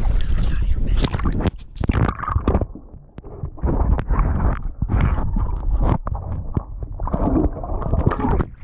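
Water splashing and sloshing in irregular bursts, with wind buffeting the microphone.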